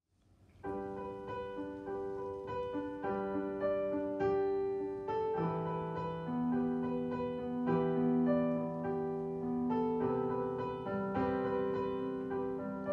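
Piano playing the introduction to a song as sustained chords and single notes. It starts out of silence about half a second in.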